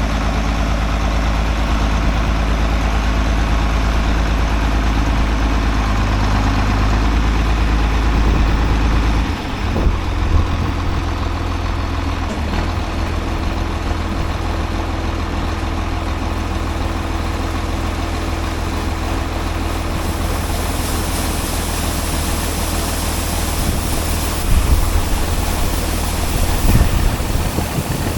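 Large engine of harvest machinery running steadily, its note changing about nine seconds in.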